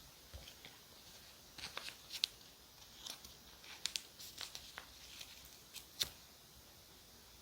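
Small crisp paper-crafting sounds, an irregular string of clicks, snaps and rustles from paper and stationery being handled, with the sharpest snaps a little over two seconds in and about six seconds in.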